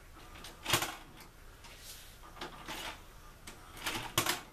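A repaired VHS cassette being pushed into a VCR, with a run of mechanical clicks and clunks from the cassette and the player's loading mechanism. The loudest come about a second in and near the end.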